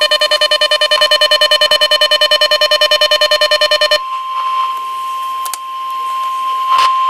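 Weather radio receiver's alert siren: a loud electronic beep of several pitches, pulsing about ten times a second. About four seconds in it gives way to the NOAA Weather Radio's steady single-pitch 1050 Hz warning alarm tone, over faint static, which signals a severe thunderstorm warning.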